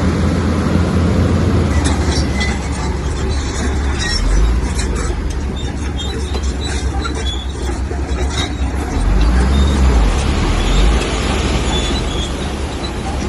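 Komatsu bulldozer's diesel engine running under load, swelling twice, with scattered clanking and rattling from the tracks and pushed rock.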